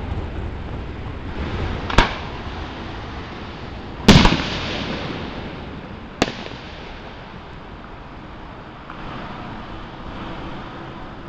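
Aerial fireworks shells bursting: three sharp bangs about two seconds apart, the middle one loudest, each trailing off in an echoing rumble.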